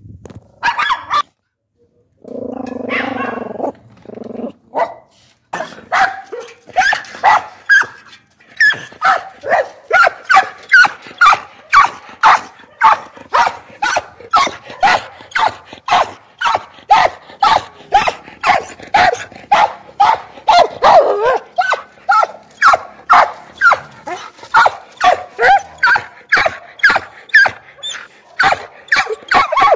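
A dog barking repeatedly, about two barks a second, after a lower, longer sound a couple of seconds in.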